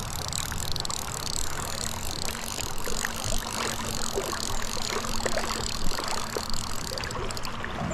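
Steady rush of flowing river water with a low rumble and scattered small clicks, and a faint steady hum through the first few seconds.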